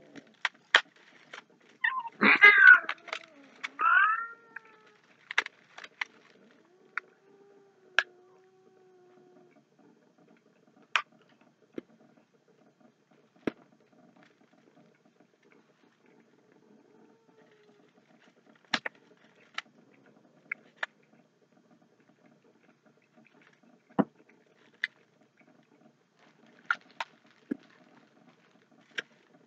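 A house cat meows twice, about two and four seconds in. After that come scattered sharp clicks and crinkles from handling a candy bar's wrapper and eating.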